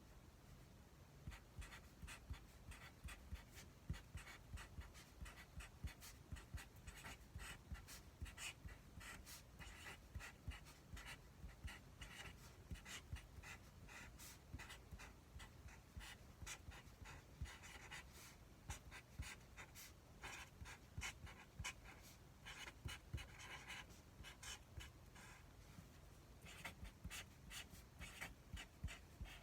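Handling of delivery-food packaging: a dense run of small clicks, crinkles and scratches in quick succession, with a few louder rustling stretches.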